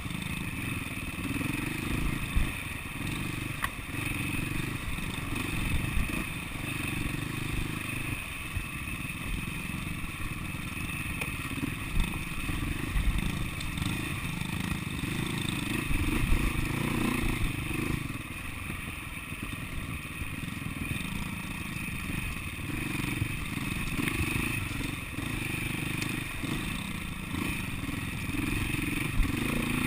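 SWM 300RS single-cylinder four-stroke enduro motorcycle running at trail speed, its engine note swelling and dropping with the throttle. Rattles and knocks come from the bike and camera mount over rough ground.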